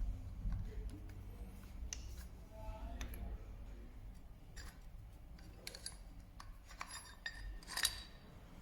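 Scattered light clicks and metallic clinks of small metal parts and hand tools being handled, the loudest clink a little before the end, over a steady low hum.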